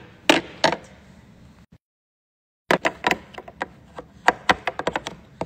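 A run of sharp, irregular knocks and taps, several a second, as hard plastic pieces are knocked about at a child's toy kitchen food truck. The sound drops out to dead silence for about a second around two seconds in.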